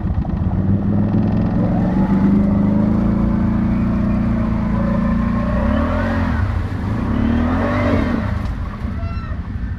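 Quad bike (ATV) engine running under load as it drives through a shallow muddy creek, revving up and back down twice, about six and eight seconds in.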